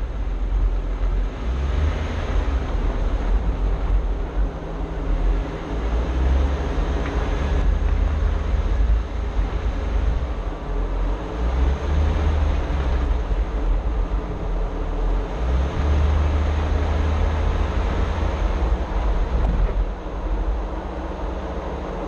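Jeep Wrangler driving slowly along a dirt trail: a continuous low rumble of engine and tyres that swells and eases every few seconds.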